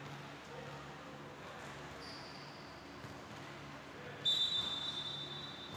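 A referee's whistle blown once about four seconds in, a long, steady, high blast and the loudest sound, over the steady hum of the sports hall.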